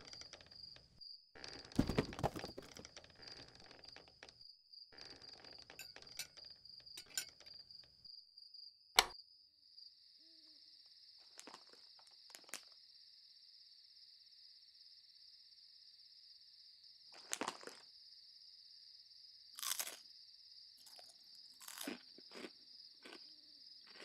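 Crickets chirping steadily in night ambience, with scattered short rustling and crunching sounds and a single sharp click about nine seconds in.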